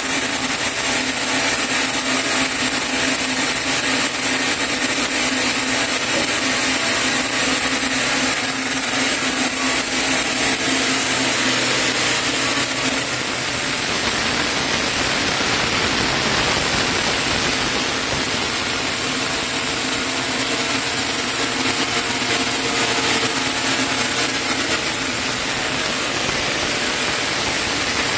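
Sawmill saw running and cutting through a chinaberry log, a loud steady whine and rush of cutting. About halfway through, the sound changes as a steady low hum drops out and the cutting noise broadens.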